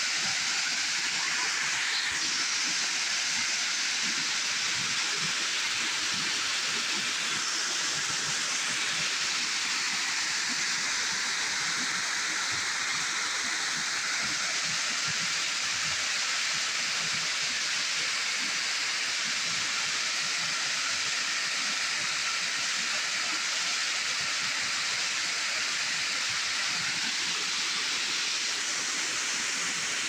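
Small waterfall falling into a pool: a steady, hissing rush of splashing water.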